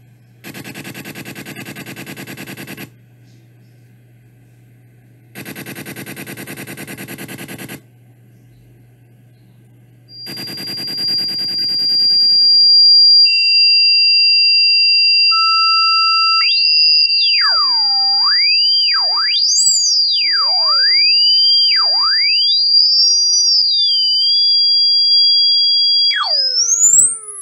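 Synthesized electronic tones of a rodent-repellent sound track. Over a low hum come two buzzing pulse trains a few seconds apart, then a louder buzz, then steady high beeps. These give way to tones sweeping up and down like a siren.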